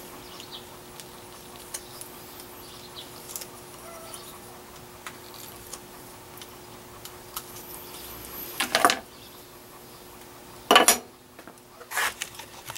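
Light metal scraping and small clicks as the drilled holes in a metal bracket are deburred by hand at a drill press vise, with a few louder metallic clinks near the end as the bracket is handled. A faint steady hum runs underneath.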